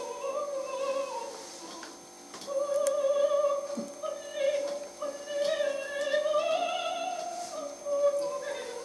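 Operatic singing with accompaniment, played from a CD through a flat picture-frame panel loudspeaker whose front plate is the cone, driven without an amplifier: fairly quiet and thin, with hardly any bass.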